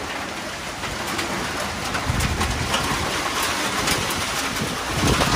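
Storm wind gusting with rain: a steady rushing noise, with low rumbles where gusts hit the microphone, strongest around the middle and near the end.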